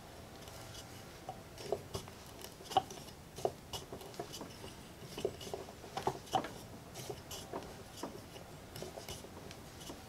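A screw being turned by hand into a wooden block with the Phillips bit of a small metal multitool held as a T-handle: faint, irregular small clicks and ticks as the tool turns and shifts in the grip.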